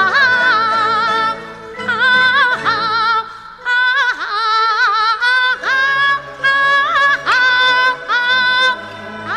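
Yue opera singing: a woman's voice in a male (xiaosheng) role sings several held phrases with a wide, wavering vibrato and sliding ornaments between notes, separated by short breaths. Instrumental accompaniment sounds beneath.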